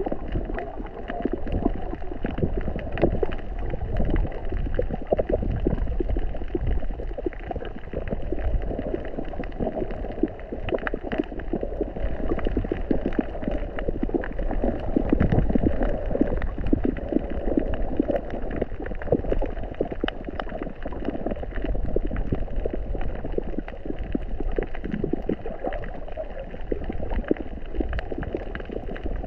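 Muffled underwater sound picked up through a camera's waterproof housing: a steady low water rush with dense crackling and popping throughout.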